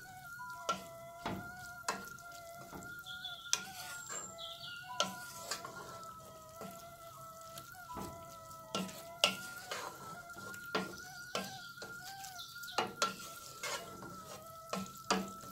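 Wooden spoon stirring rice, tomato and onion in a stainless steel pot, knocking and scraping irregularly against the pot, with food sizzling faintly on the wood cookstove. A thin steady tone runs underneath.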